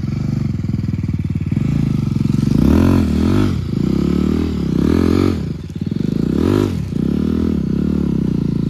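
Motorcycle engine running low and blipped up and down about three times as the bike crawls over a rough dirt and rock track.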